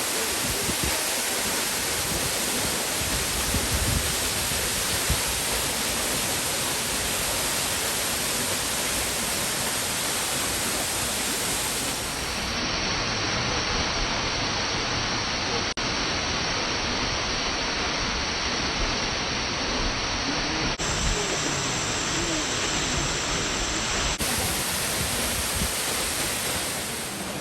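Steady rush of falling water from the Minoo Ōtaki waterfall, an even, unbroken noise.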